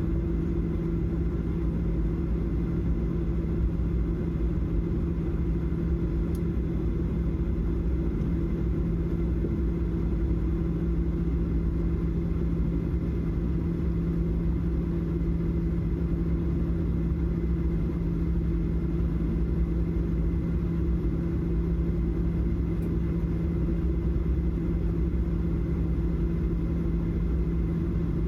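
Steady low drone of a Boeing 737-800 heard from inside the cabin, with a constant low hum that does not change.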